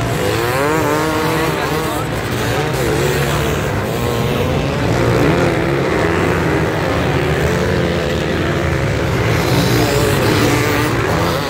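A pack of enduro motorcycles racing through deep sand, many engines revving at once, their pitches rising and falling as riders open and close the throttle.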